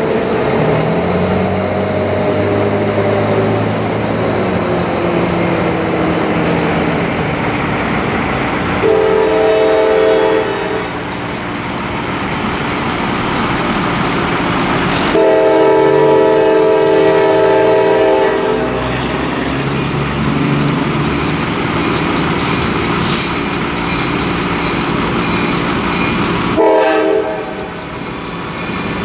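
A CSX diesel freight locomotive approaching and passing with its engine running and the wheels rolling on the rails. It sounds its air horn three times: a blast of about two seconds, a longer one of about three and a half seconds, then a short toot near the end, the opening of a grade-crossing signal.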